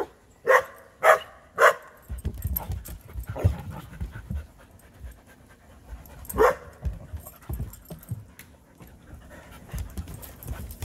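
Dogs barking: three short barks in quick succession near the start and one more about six seconds in, with a dog panting in between.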